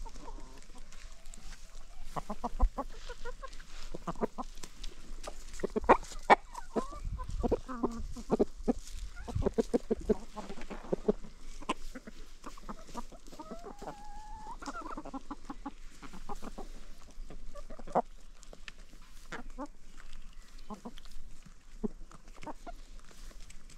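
A flock of chickens clucking, many short clucks overlapping, busiest in the first half. About fourteen seconds in, one bird gives a longer drawn-out call that wavers in pitch.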